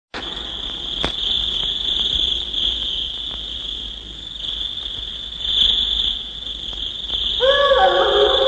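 A steady high chirring of crickets with a few faint clicks. Near the end a low sustained pitched tone comes in, sliding down slightly as it starts.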